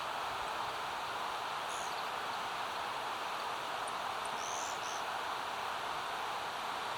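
A few short, faint, high-pitched wild bird calls, one about two seconds in and a small cluster of notes around four to five seconds in, over a steady rushing background noise.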